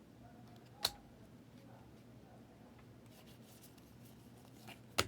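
Faint handling of trading cards, with two short sharp clicks, one about a second in and one near the end, and light rustling between.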